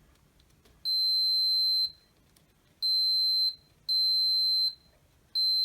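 A multimeter's continuity beeper sounding four times, a steady high beep each time, most about a second long with short gaps between. The beeps signal continuity through the drill's main switch contacts: the switch is making contact.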